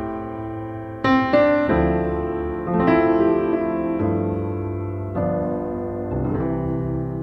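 Background piano music: notes and chords struck every second or so and left to ring and fade.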